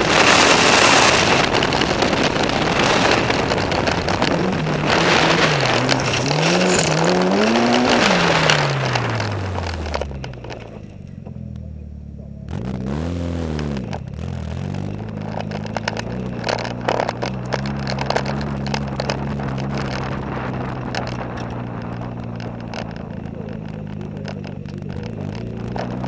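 Mitsubishi Lancer Evo VII's turbocharged four-cylinder engine revving hard and rising and falling in pitch over loose gravel, with wind rushing past the microphone, then easing off about ten seconds in. After a short throttle blip the engine runs low and steady while the tyres crackle slowly over gravel.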